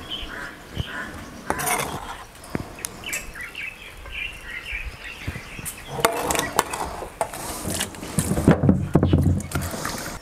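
Metal wok ladle clinking and scraping as stir-fried shredded pork and garlic scapes are scooped onto a porcelain plate, with birds chirping in the background. A low rumble with clicks comes about eight seconds in.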